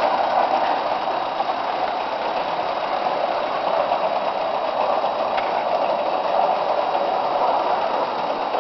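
Small Mamod live-steam locomotive with oscillating cylinders chuffing steadily as it hauls a heavy train.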